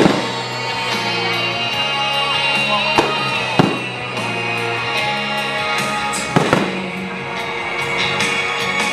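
Aerial firework shells bursting with sharp bangs: one at the start, two close together around three seconds in, and a double bang about six and a half seconds in. Music plays steadily underneath.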